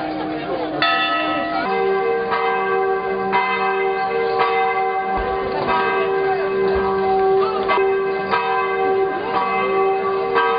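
Church bells ringing, struck about once a second with long ringing tones at several pitches; a deeper bell joins just under two seconds in.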